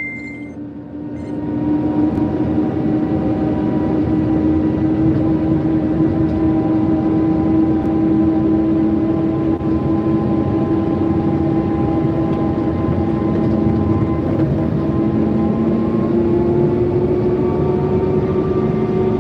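Forklift engine running steadily as the truck is driven, a low hum that builds up about a second in and rises slightly in pitch near the end.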